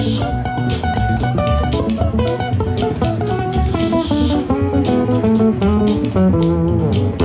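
Live band playing an instrumental passage: a guitar running quick melodic notes over bass guitar and drum kit, with a cymbal swell about every four seconds.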